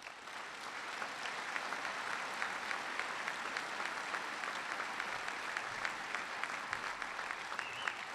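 Large audience applauding, a dense steady clapping that builds up in the first second.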